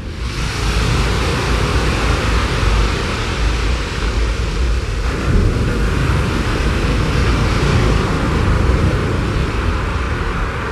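A steady rushing noise with a heavy low rumble, even and without any tune or beat.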